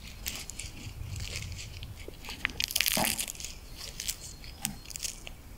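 Husk leaves being torn and peeled by hand off a freshly picked ear of maize: a run of crackling and rustling, with a louder tearing rip about three seconds in.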